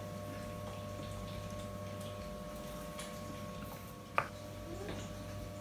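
Steady electrical hum with one sharp click about four seconds in.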